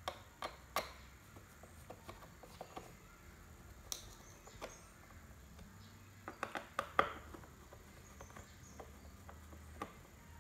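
A screwdriver driving screws into a plastic power-window switch bracket on a door trim panel: scattered small clicks and scrapes, with a quick run of sharper ticks about two-thirds of the way in.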